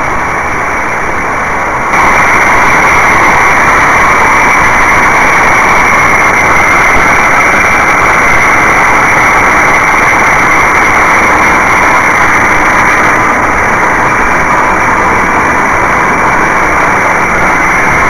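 The Spitfire Mk.IX's Rolls-Royce Merlin V12 runs steadily in flight, mixed with the rush of airflow, heard from on board the aircraft. The sound gets louder about two seconds in.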